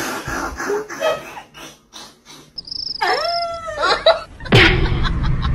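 A cat meowing: one drawn-out meow, rising and falling, about three seconds in, after a stretch of light clicks and rustling. Near the end a loud low noise starts abruptly.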